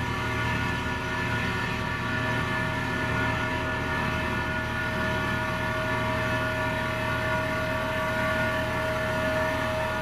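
Diesel engine of heavy road-building machinery running steadily at a constant speed, with a low rumble and a steady whine that holds one pitch.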